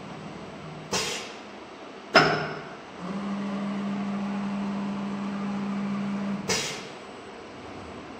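Surf CNC router's automatic tool changer cycling during an auto tool-height calibration. Three sharp, quickly fading blasts, like the spindle's tool clamp releasing on air, come about a second in, just after two seconds (the loudest) and about six and a half seconds in. A steady motor hum runs between the second and third blasts as the head moves.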